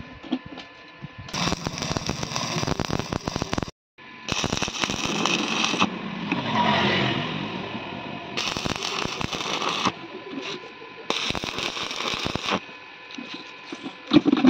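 Stick (arc) welding: the electrode's arc crackles and hisses in several separate bursts of a second or two each as square steel bars are tack-welded one by one to a steel window frame.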